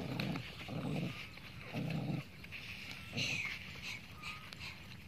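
Puppies eating together from one plate, making four short, rough, low noises in the first three and a half seconds.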